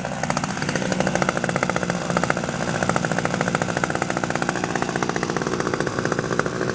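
Hirobo Huey gas-powered radio-control helicopter in flight, its two-stroke petrol engine running steadily with a fast, even rotor chop.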